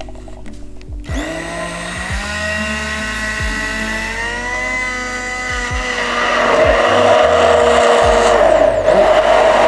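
Immersion hand blender switched on about a second in: its motor whines up to speed and then runs steadily, blending a liquid soy-milk and matcha custard mix in a tall plastic beaker. About six seconds in it gets louder and noisier as the blade churns the mix.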